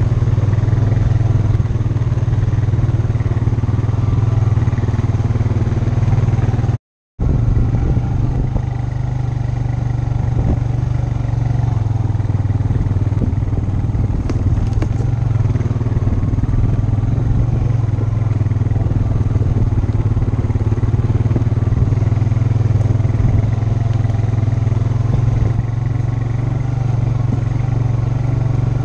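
ATV (four-wheeler) engine running steadily at an even speed while riding a dirt trail. The sound cuts out completely for a moment about seven seconds in.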